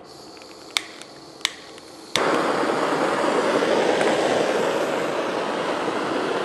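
Two sharp clicks from a hand-held gas torch's igniter, then about two seconds in the torch catches and burns with a loud, steady hiss.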